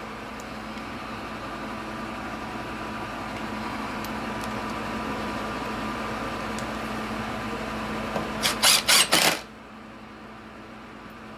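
Ryobi cordless impact driver with a star bit running a screw into the plastic wheel-well liner: a steady motor whir that builds slowly, then, just past two-thirds of the way in, four short loud bursts of hammering as the screw seats, and the driver stops.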